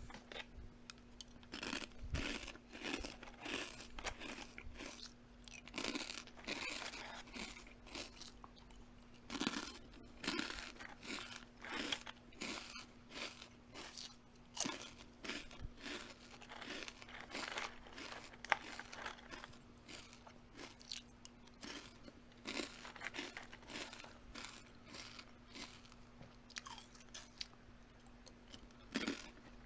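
Close-up chewing of crunchy food: an unbroken run of irregular crisp crunches and crackles.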